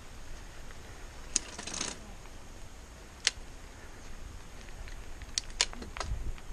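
Mountain bike rolling over a loose gravel road: tyres on stones with a low rumble, broken by sharp clicks and a short rattle from the bike and the gravel, five or so clicks spread through.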